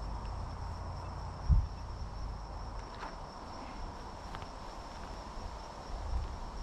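Steady high-pitched insect trilling from the brush, with one short low thump about a second and a half in and some low rumbling on the microphone near the end.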